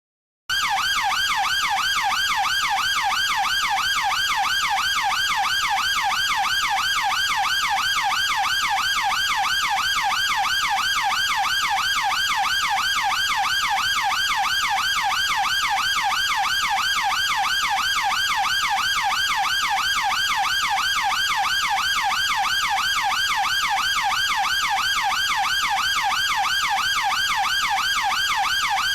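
Chinese police car electronic siren sounding a fast yelp, its pitch sweeping rapidly and evenly up and down. It starts abruptly about half a second in, after a brief silence.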